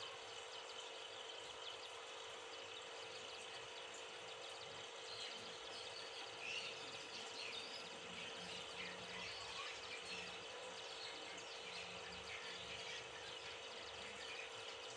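Faint steady hiss with a constant low hum, and a scatter of faint short chirps through the middle.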